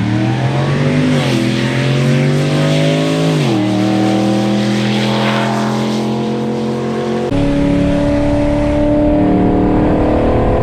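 Car engine at full throttle during a roll race, rising in pitch, dropping with an upshift about a second in, then pulling again. The driver lifts off about three and a half seconds in and the engine runs on steadily, with a deeper rumble coming in after about seven seconds.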